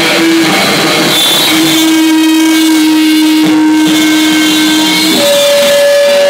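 Live experimental noise music from electronic gear: a loud, dense hiss-like wash with a steady held tone that jumps to a higher held tone about five seconds in.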